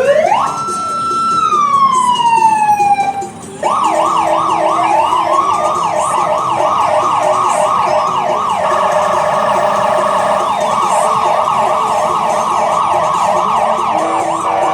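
Electronic emergency-vehicle siren. It starts with one long wail that rises, holds and then slowly falls. After about three and a half seconds it breaks off and switches to a fast yelp, about three sweeps a second, which keeps going.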